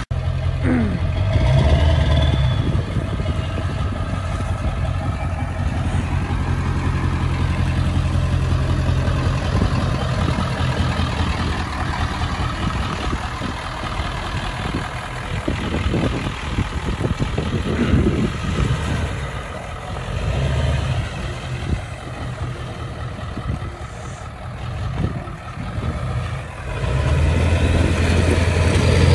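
Ford 7.3 Powerstroke V8 turbo-diesel in a 1999 F-250 pickup running at low engine speed as the truck moves slowly, its note shifting a little up and down.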